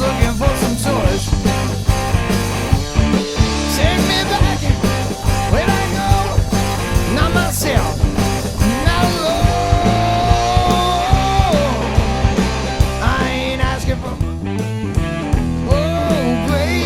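Rock band playing a song with a steady drum beat and bass, and a held high note about nine seconds in.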